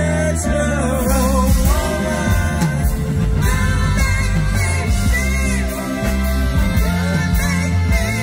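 Live band music: a woman singing lead with wavering held notes over a bass line and drums.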